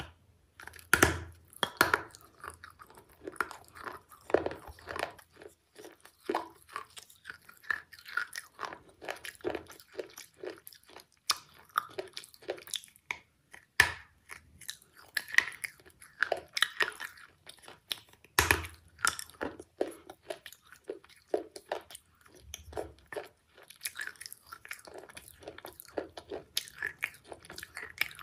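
Close-up crunching bites and chewing of broken pieces of baked clay (terracotta) pottery. Irregular crisp crunches run throughout, and a few sharper, louder bites stand out.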